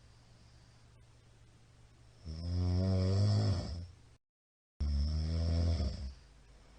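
A middle-aged man snoring loudly in his sleep: two long, pitched snores of a second or more each, starting about two seconds in, with a brief total dropout in the audio between them.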